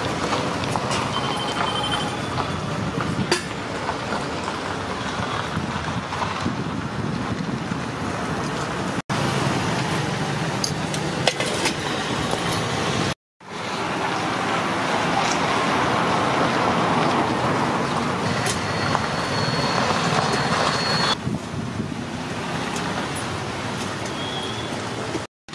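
Steady roadside traffic noise from passing vehicles, broken by brief dropouts in the sound about nine and thirteen seconds in.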